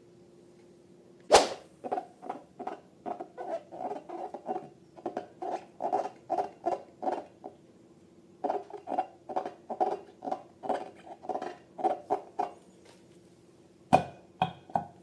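Slime being worked by hand: after a sharp knock, two runs of short wet pops and clicks come at about two or three a second, with a pause between them and a few sharper hits near the end.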